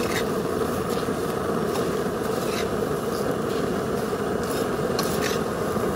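Metal slotted spatula stirring puffed rice in a metal pan, scraping against the pan now and then, over a steady rushing noise.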